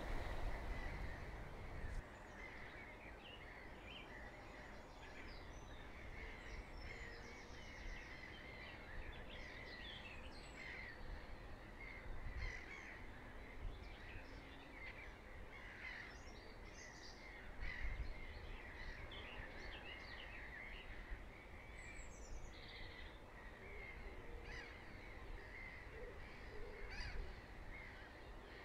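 Jackdaws calling faintly amid scattered small-bird chirps and calls, over a steady outdoor background. A single low bump sounds a little past halfway through.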